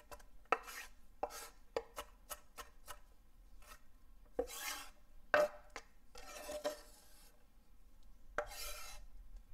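Chef's knife chopping sweet peppers on a wooden cutting board: a run of quick chops, then a few separate knocks, and the blade scraping the diced pieces across the board several times.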